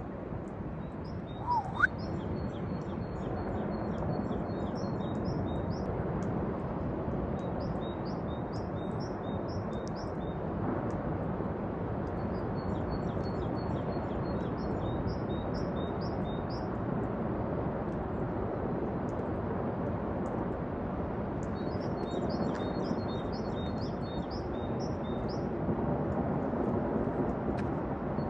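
Steady, low rushing rumble of a distant avalanche, with small birds chirping in repeated high trills over it. A short rising whistle sounds about two seconds in.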